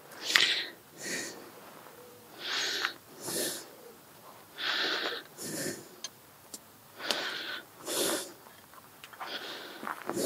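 Greased brake caliper slider pin worked in and out of its bore and rubber boot, puffing and sucking air past the grease in short hissing puffs, about two strokes every two seconds. These are the checks that the pin slides freely without binding.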